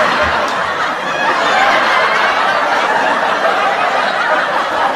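A crowd laughing, a recorded laugh track put in after the punchline. It is loud and steady and stops abruptly.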